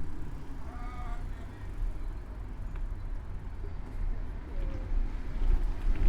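Low, steady rumble of city street traffic heard from a moving bicycle. About a second in comes a short pitched cry.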